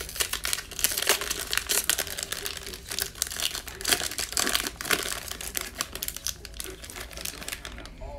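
Metallic foil wrapper of a football trading card pack being torn open and crumpled in the hands: a dense, crackling crinkle that thins out near the end.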